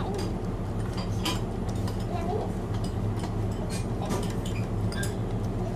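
Metal spoon and fork clinking against ceramic plates and bowls during a meal, several light, irregular clinks over a steady low hum.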